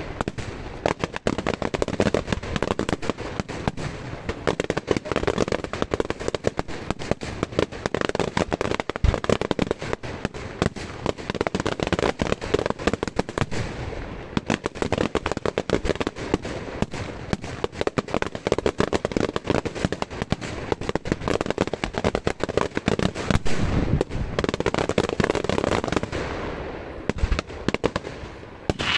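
Daylight fireworks display: a dense, unbroken barrage of aerial shell bursts and crackling reports, many bangs a second with no pause.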